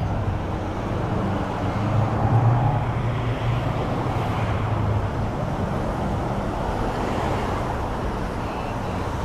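Road traffic: a steady wash of passing vehicles with a low engine hum that swells about two seconds in and eases off after about five seconds.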